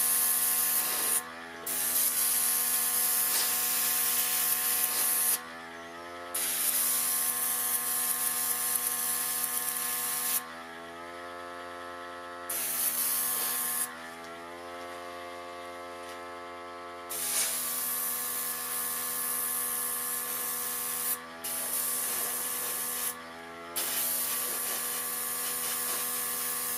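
Airbrush spraying paint in stretches of a few seconds, a hiss of air that starts and stops about seven times as the trigger is worked. Under it runs the steady hum of the airbrush's small compressor, its pitch shifting each time the spraying stops and starts.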